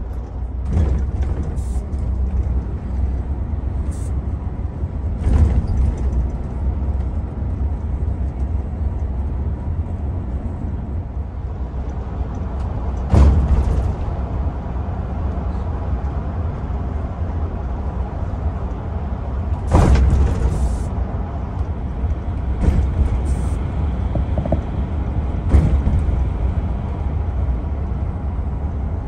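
Bus engine and road noise heard from inside the cabin while driving, a steady low rumble. Several brief louder noises stand out, the loudest about thirteen seconds in and again near twenty seconds in.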